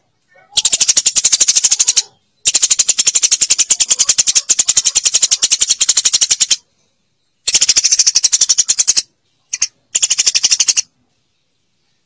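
Eurasian tree sparrow chattering: rapid runs of sharp, high chirps at about ten a second, in bouts of one to four seconds broken by abrupt silences.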